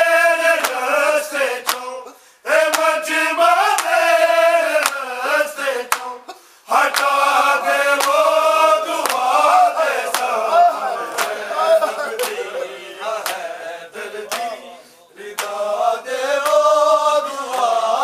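Men chanting a Shia noha (mourning lament) without instruments, one voice leading in long, wavering held phrases broken by short pauses for breath.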